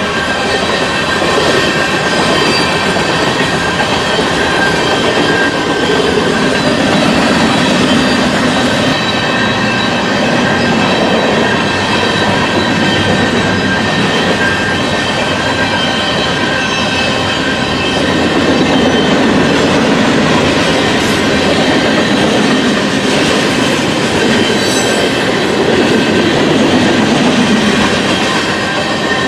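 Freight train's tank cars and covered hopper cars rolling past close by: a steady, loud noise of steel wheels running on the rails, with a thin high squeal of wheels held over it.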